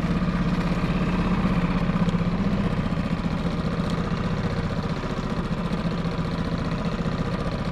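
Boat's outboard motor running steadily at trolling speed, an even low hum with a fast, regular pulse.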